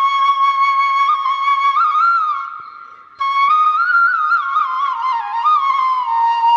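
Instrumental background music carrying a single melody line; it fades away about halfway through, then cuts back in abruptly a moment later.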